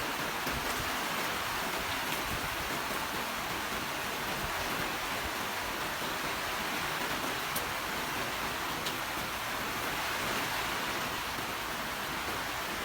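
Steady rain falling, an even hiss with a few faint sharper drop ticks.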